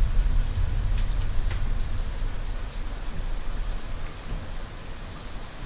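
Rain falling steadily, with a deep low rumble that is loudest at the start and dies away over several seconds.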